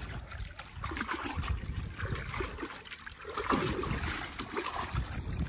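Water splashing and sloshing against a small drum raft as a cast net is hauled in by its rope, in uneven little splashes.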